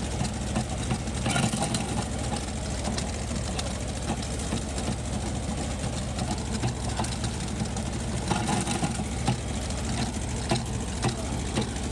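Kubota B6000 compact tractor's diesel engine running steadily, driving a wood shredder that crackles and crunches as branches are fed through it. The chipping gets louder briefly about a second and a half in and again around eight and a half seconds.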